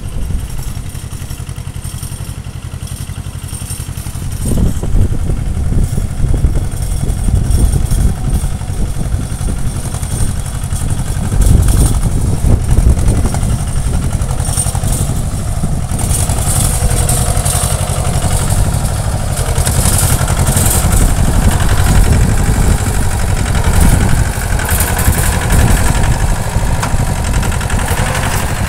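Compact tractor's engine running steadily as it pulls a rotary tiller through the soil, getting louder from about four seconds in as it comes up close.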